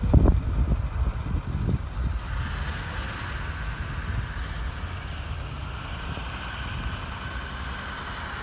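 Fire-rescue pickup truck driving away, its engine running, with wind gusting on the microphone in the first moments. A faint steady higher whine joins about two seconds in.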